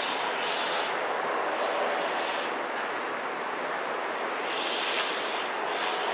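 Boeing 747-400 jet engines running at taxi power: a steady rushing noise with a hiss that swells and fades a few times.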